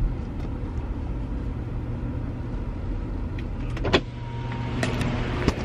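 Car running, heard from inside the cabin as a steady low rumble, with a couple of sharp clicks about four seconds in and near the end.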